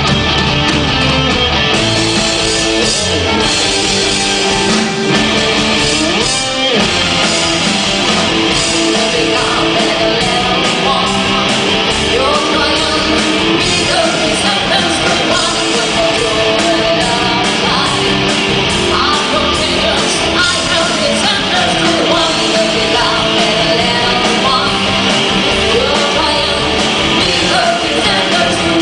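Live rock band playing: electric guitars, bass guitar, drums and keyboard, with a woman singing lead over them.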